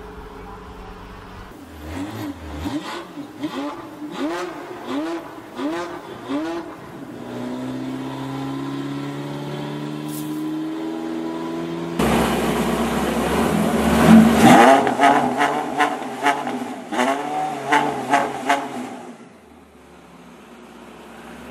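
Porsche 918 Spyder's V8 revved in a string of quick blips, the pitch shooting up and falling back about eight times. Then it pulls away with a steady rising note. After a sudden cut it is louder, with another run of sharp rev blips that fades out near the end.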